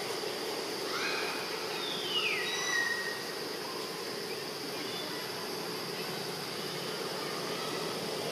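Steady insect drone. About two seconds in comes one brief high call that falls in pitch.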